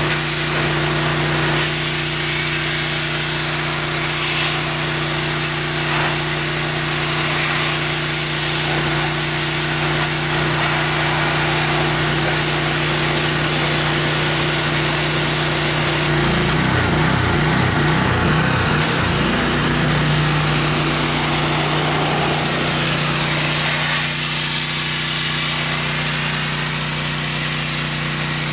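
Pressure washer running steadily: a constant pump hum under the hiss of the high-pressure water jet spraying onto the logs. About two-thirds of the way through, the hum wavers unevenly for a few seconds before settling back to its steady note.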